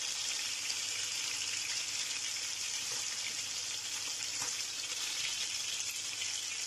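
Skin-on salmon fillets sizzling in hot oil in a frying pan: a steady, even hiss.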